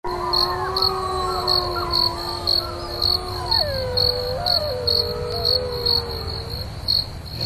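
Crickets chirping steadily, about two chirps a second, under several overlapping long, slowly gliding eerie tones that fade out near the end.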